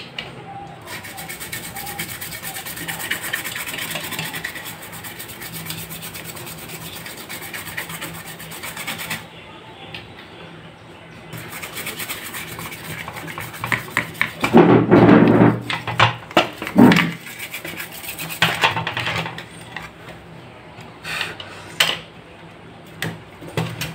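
Stiff brush scrubbing a monitor's power-supply circuit board with rapid scratchy strokes while it is cleaned. The scrubbing gets louder past the middle, mixed with knocks from the board being handled.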